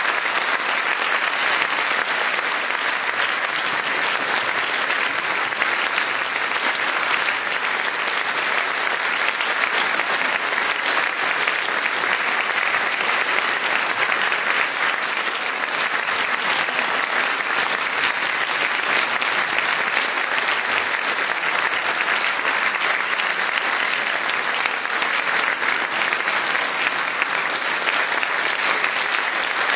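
Concert-hall audience applauding: dense, steady clapping that goes on without a break.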